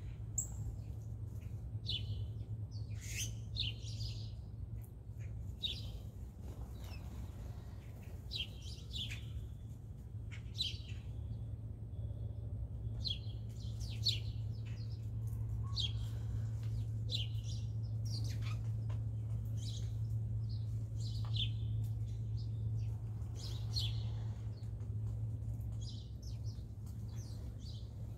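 Small birds chirping in short, scattered high calls, some in quick runs, over a steady low hum.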